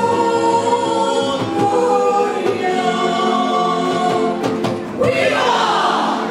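A mixed choir of men and women singing a Goan mando with instrumental accompaniment. A noisier rush joins the music about five seconds in.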